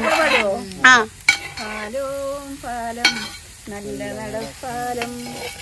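A woman singing a Malayalam folk song unaccompanied, holding her notes and stepping from one pitch to the next, with food sizzling in a pan underneath.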